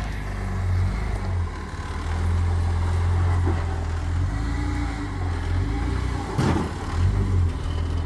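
Jeep Wrangler JK Unlimited's V6 engine rumbling at low revs as it rock-crawls over boulders, swelling and easing with the throttle. About six and a half seconds in there is a brief sharp knock.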